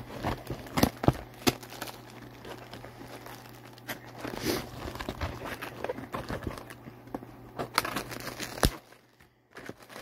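A cardboard snack-cake box being handled and opened while a cellophane-wrapped cake is pulled out. Irregular crinkling and crackling with sharp snaps goes quiet for a moment near the end.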